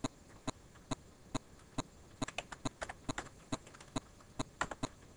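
Typing on a computer keyboard: single sharp keystrokes at an uneven pace, a few a second.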